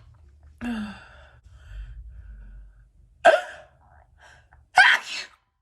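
A woman sneezing twice, about three seconds in and again a second and a half later, each sudden and loud, after a breathy gasp near the start.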